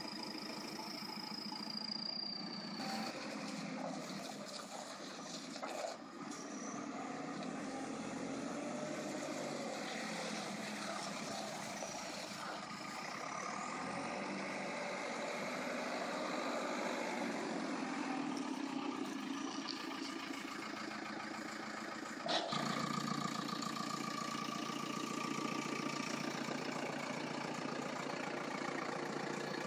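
2008 JCB 3CX backhoe loader's diesel engine running as the machine works, with a high whine over the first couple of seconds. About 22 seconds in the sound steps up suddenly and a steady whine joins the engine.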